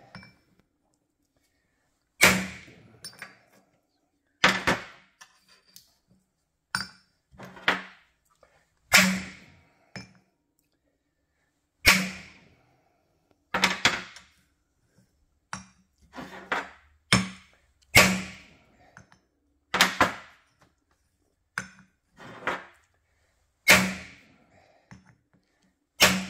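Hammer blows on a ball-peen hammer held as a punch against a metal disc on a steel workbench, pressing an indentation into a walking-beam cap: sharp metallic strikes with a brief ring, irregularly spaced, about one every second or two, some in quick pairs.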